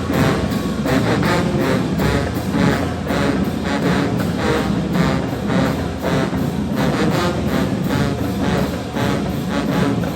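Marching band brass and drums playing a loud passage with a steady, driving beat.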